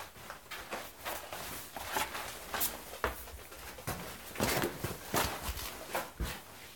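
Footsteps crunching irregularly on a sandy, gravelly canyon floor.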